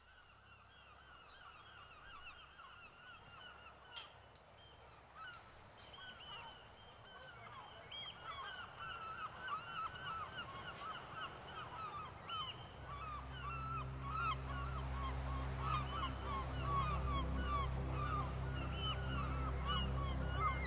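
A flock of geese honking, many short calls overlapping and growing steadily louder. About 13 seconds in, a low steady drone enters underneath.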